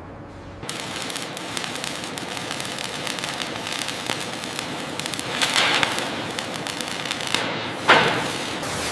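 Dense crackling noise full of sharp clicks, starting suddenly about a second in, swelling around five and a half seconds and ending in a sharp loud burst near the end.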